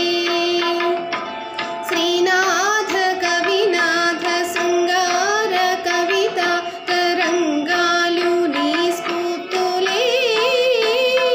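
A woman singing a Telugu song in Carnatic style, the melody full of quick ornamental turns, over a steady drone with light percussion.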